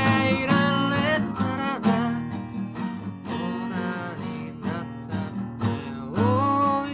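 Acoustic guitar strummed and picked, with a man singing over it in places.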